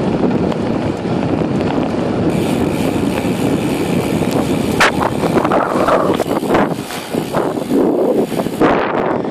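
Wind buffeting the microphone of a camera riding on a moving bicycle, a steady rushing noise. From about halfway through, a few sharp knocks and rattles break in, as the camera is jostled and tipped down.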